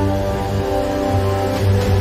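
Background music: sustained chords that change every half second or so, over a deep bass.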